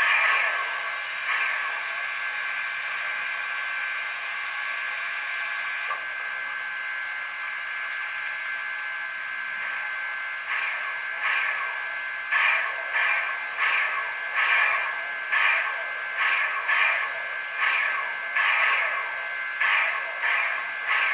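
Model steam locomotive sound from a Loksound V5 decoder, played through a small speaker with no bass. A steady steam hiss runs for the first half. From about halfway, rhythmic steam beats start, roughly one to two a second.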